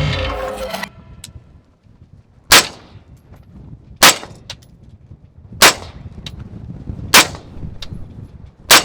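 Five suppressed gunshots, evenly spaced about a second and a half apart, each a sharp crack with a short ring-off.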